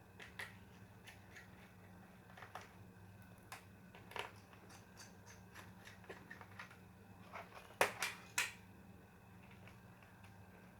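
Scattered small clicks and taps of a screwdriver and loose parts on a laptop being taken apart, with a sharper run of three clicks about eight seconds in, over a faint steady hum.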